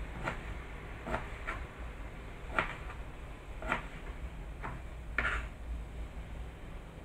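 Kitchen knife cutting pickled mustard greens on a plastic cutting board: about seven irregular knocks of the blade meeting the board. A little past five seconds in comes one longer, louder stroke as the blade sweeps the cut pieces across the board.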